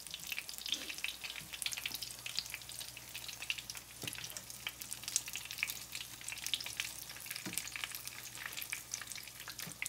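Egg rolls frying in hot oil in a skillet: a steady crackling sizzle made of many fine pops.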